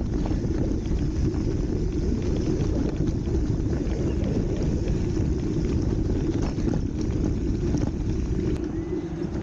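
Bicycle tyres rolling over a rough gravel road, a steady low rumble mixed with wind on the handlebar-mounted camera's microphone, with a few short knocks from the bike jolting over stones.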